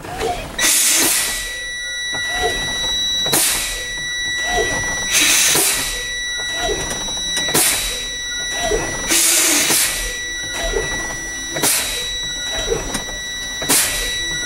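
A truck's air brakes hiss in a sharp blast about every two seconds as the brake pedal is pumped to bleed down air pressure for a spring-brake pop-up test. Under the blasts runs the steady high tone of the low-air warning buzzer, which keeps sounding because pressure is below its 70 PSI trip point.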